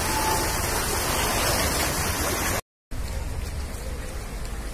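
Steady rushing hiss of outdoor noise, cut off by a brief total dropout about two and a half seconds in, after which it carries on a little quieter.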